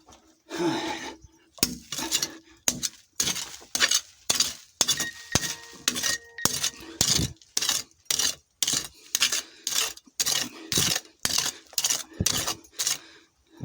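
A pickaxe chopping repeatedly into hard ground, about two strikes a second, each a sharp clinking impact of metal on rubble.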